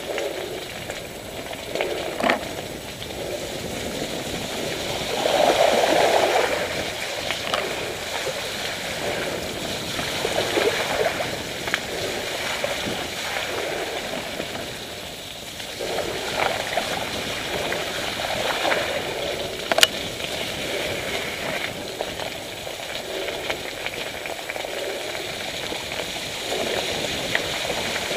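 Mountain bike tyres rolling through wet mud and puddles, a continuous splashing, sloshing noise that swells and fades as the wheels hit water, with a few sharp knocks from the bike over bumps.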